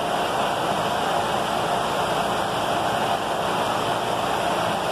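Car radiator fan motor running on the bench, its blades giving a steady rush of air. It is running at high speed, switched up by the coolant temperature thermo switch being heated.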